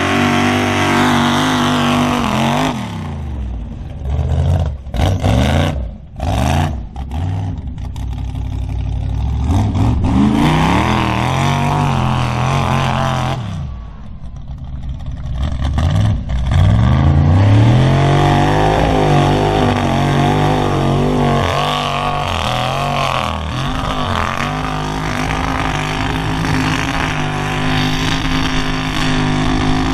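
Small mud-bog pickup's engine revving hard as it churns through deep mud, its pitch rising and falling with the throttle. About four to seven seconds in the throttle is stabbed on and off in quick bursts; it eases off briefly near fourteen seconds, then climbs again.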